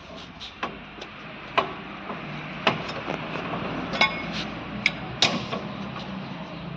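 Metal tools clinking and tapping on the rear hub of a Maruti Swift while its four 14 mm hub bolts are undone: a handful of sharp, separate metallic clicks, some ringing briefly.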